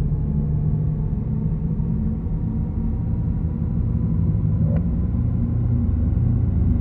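Audi e-tron GT electric car moving, a steady low rumble with a faint hum, without combustion-engine sound.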